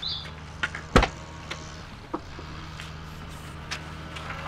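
A van's rear door being opened, with a sharp clack from the door about a second in, followed by a few light clicks and knocks as equipment in the back is handled, over a steady low hum.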